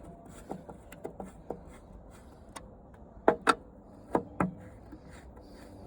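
A tight screw being turned out of an old TV's plastic casing with a screwdriver, popping, cracking and snapping: a string of small clicks, then two louder sharp cracks about three and a half seconds in and two more just after four seconds.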